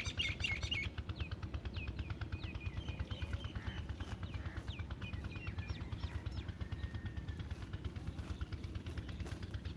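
Small birds chirping in short, quick falling notes, busiest in the first half, over a rapid, even pulsing that runs throughout and a low rumble.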